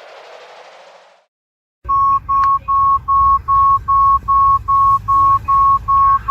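A mobile phone's low-battery warning: a steady run of short, identical high beeps, about two and a half a second, over a low hum, starting about two seconds in after a brief gap. Before it, a hiss fades out within the first second.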